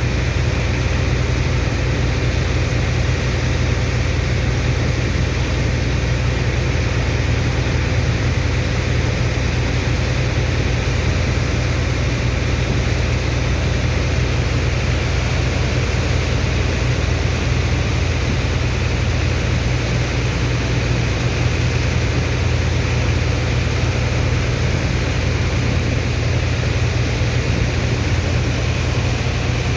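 Sand dredger's pump engine running steadily, a constant low drone with a faint steady whine above it.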